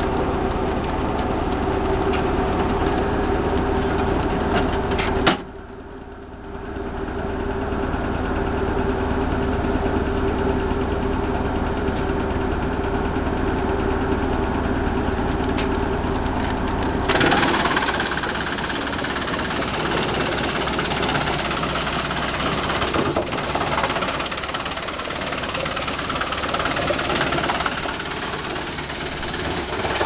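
Tractor-driven Lippel forest wood chipper running off the tractor's engine: a steady mechanical hum with a few sharp clicks. Its level dips sharply for about a second some five seconds in, and about 17 seconds in the sound turns louder and noisier.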